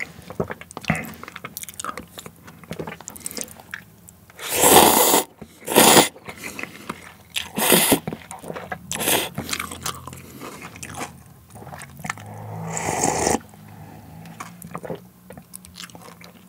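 Close-miked eating of cup instant noodles: chewing and mouth noises, with several loud slurps of noodles, the longest about four and a half seconds in and again near the end.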